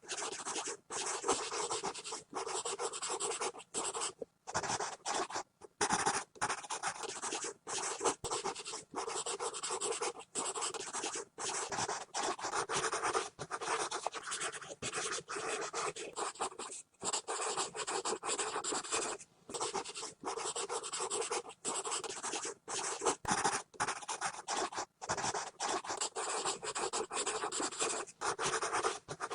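Pencil scribbling fast on paper: continuous scratchy strokes broken by brief pauses as the lead lifts off.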